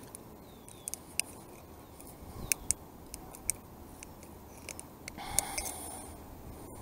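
Scattered sharp metallic clicks and snips of fishing pliers working at a treble hook deep in a small catfish's mouth, while the fish is held in a lip-grip tool.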